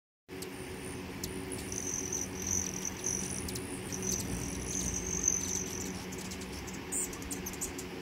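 Hummingbirds buzzing around feeders: a high, steady trilling buzz in two stretches of about two seconds each, over a low steady hum, with a few sharp clicks near the end.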